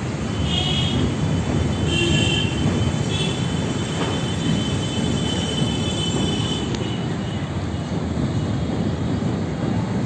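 A train running over a steel truss railway bridge: a steady rumble with high, thin wheel squeals that come and go, the longest from about three to seven seconds in.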